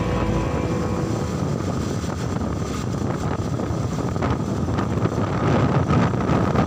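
Motorcycle riding along: wind rushing over the microphone, with the bike's engine and road noise underneath.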